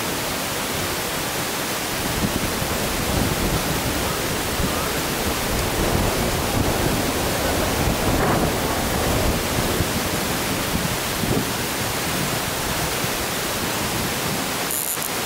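Wind buffeting the camera microphone: a steady hiss with a low rumble that grows stronger from about two seconds in and eases off again near the end.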